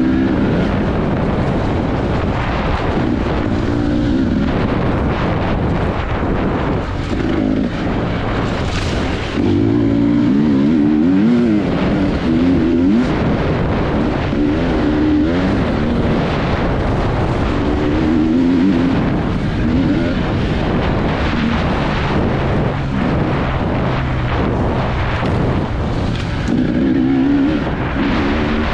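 Motocross bike engine revving hard, its pitch repeatedly rising and falling as the throttle opens and closes through the race.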